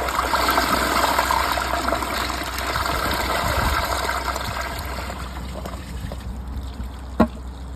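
Water rushing and running in a WaterRidge dual-flush toilet after a flush, slowly tapering off toward a trickle, with the tank overfilled. A single sharp click sounds near the end.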